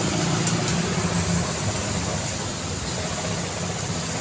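City road traffic: a steady low hum of vehicle engines mixed with road noise.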